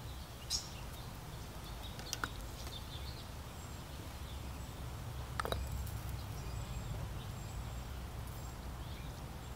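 Steady low outdoor background rumble, with a few brief, faint high sounds: one about half a second in, one near two seconds, and a sharper tick at about five and a half seconds.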